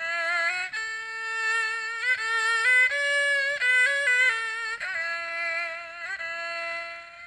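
Haegeum, the two-string Korean bowed fiddle, played solo: a slow melody of held notes with wavering pitch and slides between them, climbing higher in the middle and coming back down, fading away near the end.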